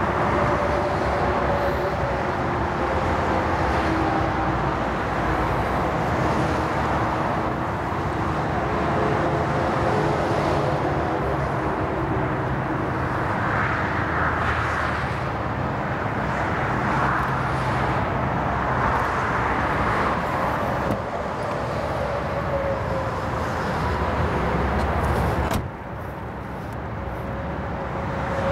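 Steady motorway traffic: lorries and cars passing at speed, their tyre and engine noise swelling and fading as each goes by. The level drops suddenly near the end, then builds again as the next vehicle approaches.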